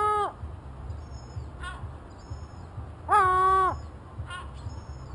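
A gull calling: two loud, drawn-out cries about three and a half seconds apart, each falling in pitch at its end, with two short, fainter calls between them. A low rumble runs underneath.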